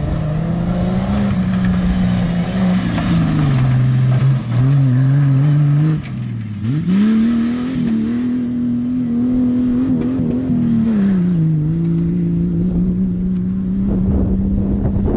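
Off-road race vehicle's engine running hard, its pitch rising and falling with the throttle. It drops away briefly about six seconds in, then climbs back up and holds fairly steady.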